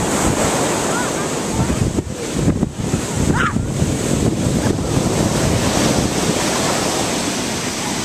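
Ocean surf breaking and rushing in a steady wash, with wind buffeting the microphone.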